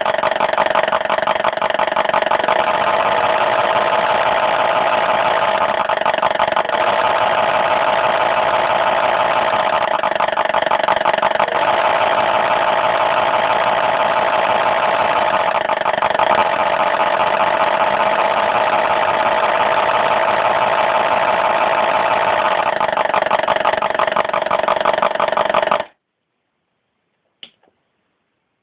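Engine sound from the model boat's electronic sound module, played through its loudspeaker: a steady, evenly pulsing idle that stops abruptly near the end, followed by a couple of faint clicks.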